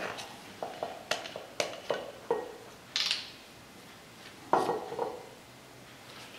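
Kitchenware handled off-camera: a string of sharp clinks and knocks of utensils and dishes, with a louder clatter about four and a half seconds in. Quieter near the end.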